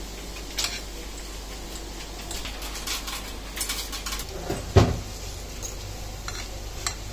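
Metal fork clinking and scraping against a bowl as it breaks butter into small pieces in a beaten-egg and tomato mixture, with scattered light clicks and one dull thump about five seconds in.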